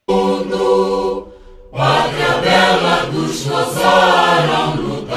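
Choral singing as background music: a held chord comes in suddenly, drops away after about a second, then the voices return with a moving sung line.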